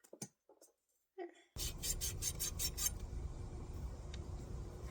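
Pipe end being reamed: a tool scraping the cut end of copper pipe in quick rasping strokes that start about a second and a half in, after near silence, then settle into a steadier scrape.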